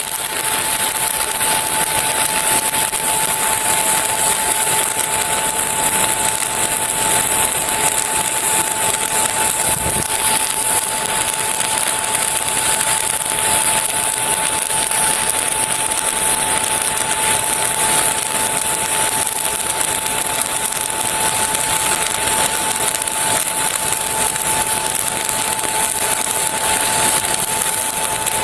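Stick (SMAW) arc welding on DC electrode negative at 100 amps: a steady drag bead with a continuous soft, even crackle and hiss from the arc, and a steady high tone throughout. It runs softer and quieter than on electrode positive.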